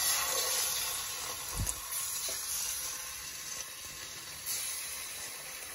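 Chicken drumsticks sizzling as they fry in hot oil in a kadhai, the sizzle starting as the pieces go in and gradually getting quieter. A single soft low thump about one and a half seconds in.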